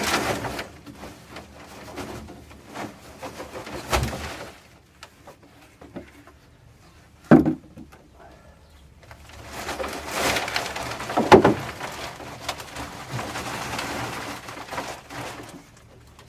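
Compost and potatoes tipped out of a bucket and its bag into a plastic tray: a few knocks and bumps, then a long stretch of rustling, scraping and pouring soil. A bird calls in the background now and then.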